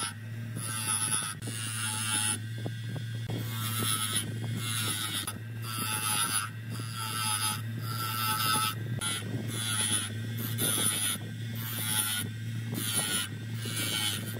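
Q&S PT-250 bench grinder running with a steady hum. A wooden slat is pressed against the grinding wheel in short strokes, about one a second, each one a brief grinding scrape as it cuts a notch into the wood's edge.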